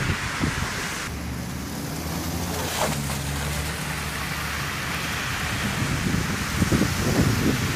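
Street traffic on a wet, slushy road: a steady hiss of tyres on wet pavement with passing car engines, and a few low rumbling thumps near the end.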